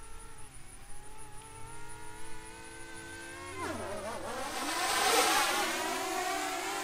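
DJI Mini 2 quadcopter on its standard folding propellers: a several-toned propeller and motor whine, faint and steady at first. About halfway through the pitch drops sharply and climbs back, and the whine grows louder.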